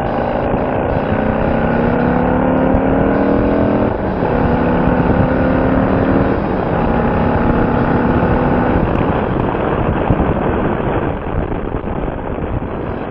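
Motorcycle engine accelerating and shifting up through the gears, heard through a helmet microphone under heavy wind rush. Its pitch climbs, then drops at each shift, about four seconds in and again around six and a half seconds. After about nine seconds the engine tone fades into steady wind noise.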